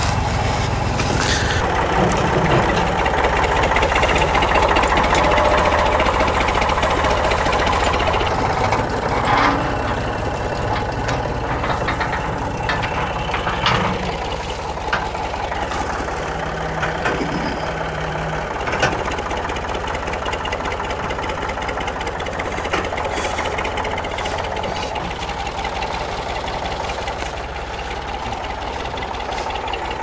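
Tractor engine running steadily, a little louder in the first several seconds, with a few short knocks here and there.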